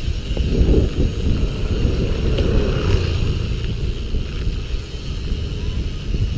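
Wind buffeting the microphone and tyres rumbling over a rough road as a bicycle rolls along at speed. A faint steady high-pitched note sits underneath throughout.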